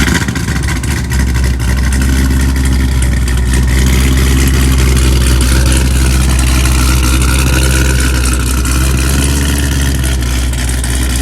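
Cammed 2019 Corvette C7 ZR1's supercharged 6.2-litre LT5 V8, with a ported blower and full bolt-ons, starting with a sudden loud flare and settling about a second in to a loud, steady idle.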